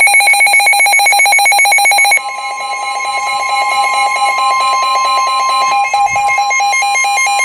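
Weather radio alert tones: a rapid electronic beeping alarm, joined about two seconds in by a steady high warning tone. The steady tone is the NOAA Weather Radio warning alarm tone that heralds an updated flood warning.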